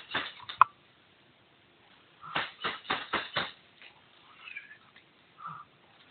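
Airsoft rifle shots: a few sharp snaps at the start, then a quick string of about six snaps a little over two seconds in, with a few short high-pitched sounds in between.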